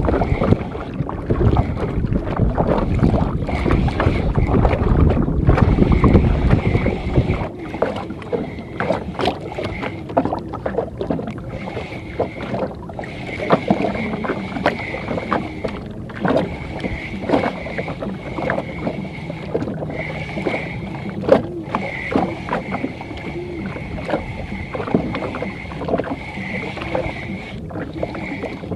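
A small spinning reel (HE 1000) cranked in stretches during a lure retrieve: a thin high whir that starts and stops, over small splashes and knocks of water against a wooden outrigger boat. Heavy wind rumbles on the microphone for about the first seven seconds.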